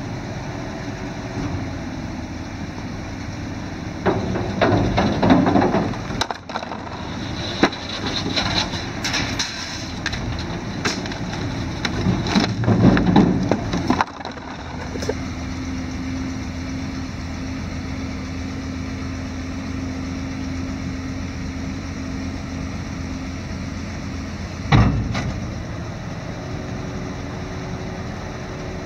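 A 1970 Dodge dump truck's engine runs while its hydraulic hoist tips the dump box up, with two loud bouts of noise and sharp clicks as the box rises. Then comes a steady hum while the box is lowered, and a single loud thump near the end as the box comes down.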